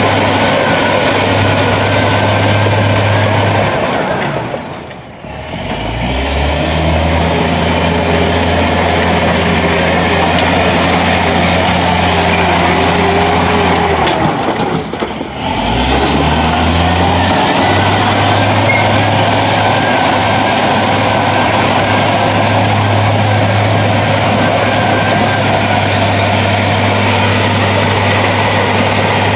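Vintage crawler dozer's diesel engine running steadily. Twice its speed drops and then picks back up to a new steady pitch, with a faint high whine falling and rising along with it.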